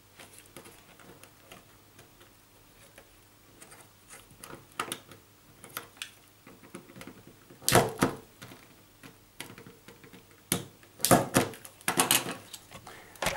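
Sharp clicks from fitting solid-core CAT5e wires into the IDC terminals of a plastic network faceplate socket. After some faint ticks there is a cluster of clicks about eight seconds in and a louder run of clicks near the end.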